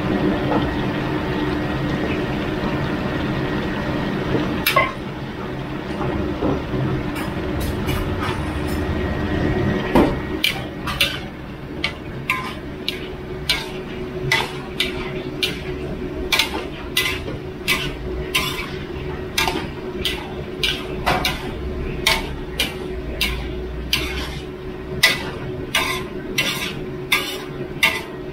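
Metal spatula scraping and striking a wok while a large batch of yellow bamboo shoots with fish balls is stir-fried, over a steady low hum. The sharp clanks start about ten seconds in and keep an even pace of one or two a second.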